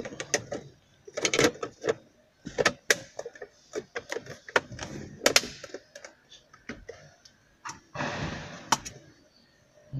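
Plastic centre-console trim of a Mercedes W204 being refitted by hand: scattered clicks and knocks as the panel is pressed back into place, with a brief scraping rustle about eight seconds in.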